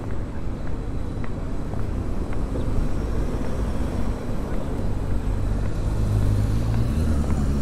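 Road traffic on a city street: a steady low rumble of vehicles, with one engine's low hum growing louder in the second half as it comes closer.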